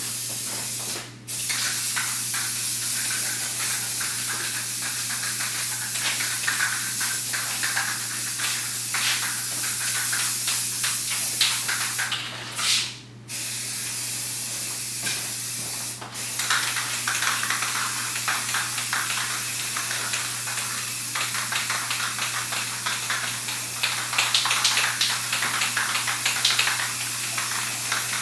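Aerosol spray paint can hissing in long continuous bursts as paint is sprayed onto a wall, with a few short breaks where the nozzle is released.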